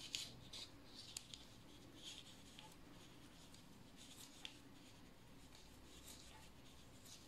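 Faint, scattered clicks and scratches of metal knitting needles and yarn while knit stitches are worked and stitches slipped, over near-silent room tone.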